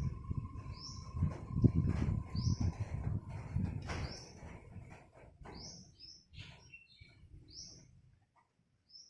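A small bird chirping repeatedly, short high chirps about once every second or so. There is low rumbling noise during the first half that fades out.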